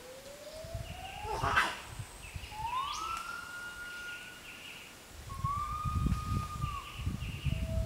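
Lar gibbon singing: long, pure hooting notes. The first rises slowly, the next two swoop up and are held higher, and a lower note falls near the end. A short sharp noise comes about one and a half seconds in, and a low rumble sits under the later notes.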